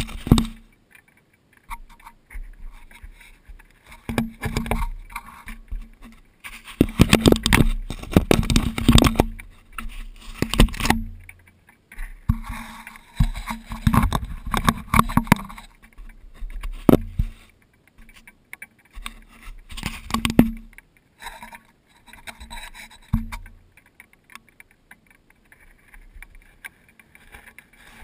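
European badger nosing and rubbing against the camera, its fur and snout scraping and bumping the housing in irregular bursts of rustling and knocking with quiet gaps between.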